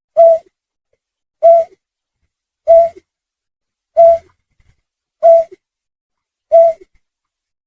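Looped lure recording of a wading bird's call, labelled as the snipe (trinil sawah, burcet): one short, clipped note repeated at a steady pace about every 1.3 seconds, six times.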